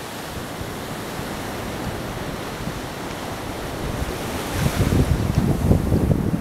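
Small waves washing onto a sand beach, a steady hiss of surf. About four and a half seconds in, wind starts buffeting the microphone with a low, gusty rumble.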